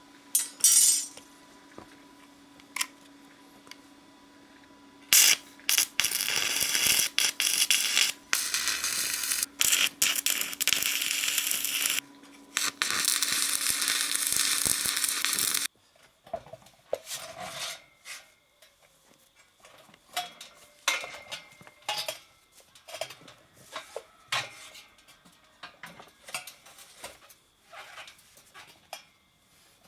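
Electric arc welding on steel tube: a loud, even crackling hiss in several stretches with short breaks, then stopping suddenly. After it come scattered light clinks and knocks of metal parts being handled.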